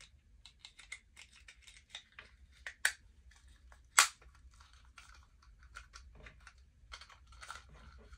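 Small plastic action-figure parts, a Masterverse Clamp Champ figure and its clamp accessory, clicking and rattling as they are handled and pushed together. There are two sharper snaps about three and four seconds in, the second the loudest.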